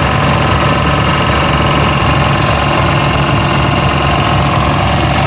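Engine of a traditional wooden dhow running steadily under way, heard loud from on board.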